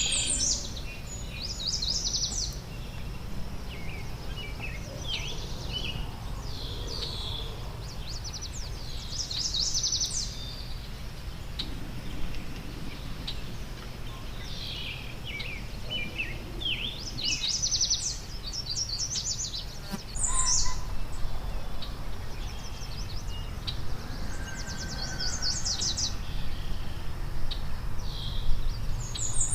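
Wild songbirds singing and calling: repeated phrases of rapid high notes and scattered short chirps, over a steady low background rumble.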